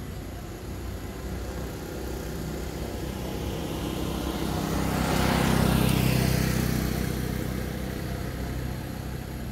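A motor vehicle passing by, growing louder to a peak about six seconds in and then fading away.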